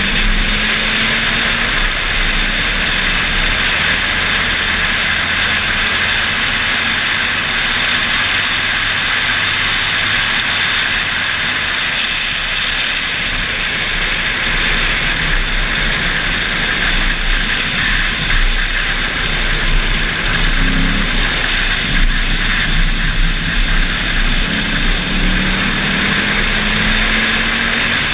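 Loud, steady wind rush over an outside-mounted camera's microphone at track speed, with the 2008 Mustang GT's 4.6-litre V8 faint underneath, its note slowly rising and stepping in pitch as it accelerates and shifts.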